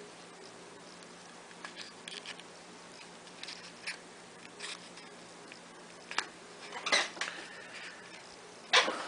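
Small clicks and brief scrapes of hand tools working on the plastic and metal parts of a Samsung Galaxy S6 Active smartphone as it is taken apart, with the loudest clicks near the end.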